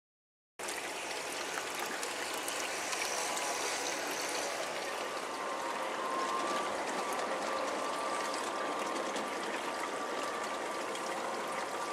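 LGB garden-scale freight train rolling past on its track: a steady rushing noise of wheels on rail with a faint motor whine, starting suddenly about half a second in.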